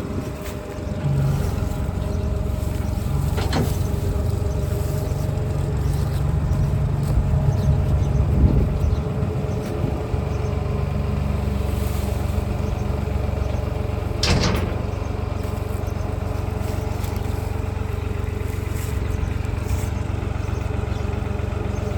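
Tractor engine running steadily, driving a feed mixer wagon that is mixing sweet corn, with two sharp knocks about three and a half and fourteen seconds in.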